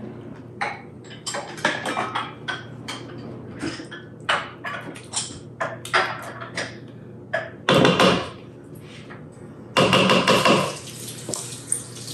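Silicone spatula scraping pumpkin purée out of a glass measuring cup into a ceramic mixing bowl: a run of light knocks and clinks, with two louder scrapes about eight and ten seconds in.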